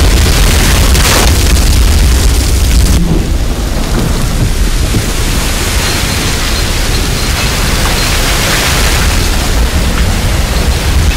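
Loud, steady rumbling roar of an oil well blowing out, crude oil and mud gushing up through a wooden drilling derrick. The high hissing spray thins a little about three seconds in while the deep rumble carries on.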